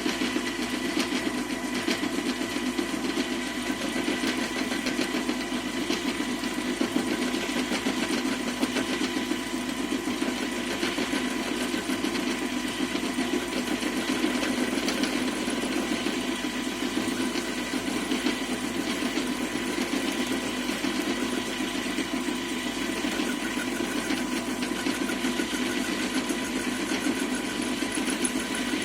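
A lathe running steadily: a constant mechanical whir with a steady whine.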